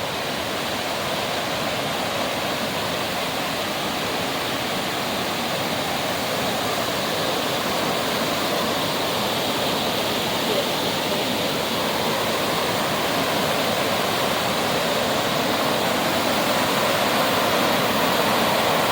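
Waterfall rushing steadily, growing a little louder toward the end.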